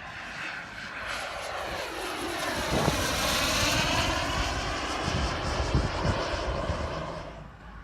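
Turbine engine of a radio-controlled F-104 Starfighter model jet in a flypast. The whine swells as it approaches, its pitch falls as it passes about three seconds in, and it fades away near the end.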